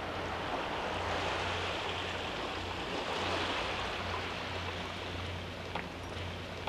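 Sea waves washing onto a rocky, pebbly shore: a steady rush of surf that swells for a few seconds and then eases back.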